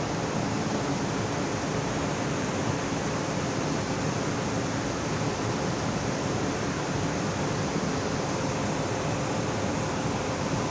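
Blast furnace taphole blowing: hot blast gas jetting out of the taphole makes a steady, even rushing noise with a faint steady hum under it. A taphole blows once the liquid iron and slag have drained below it, the sign that the cast is ending.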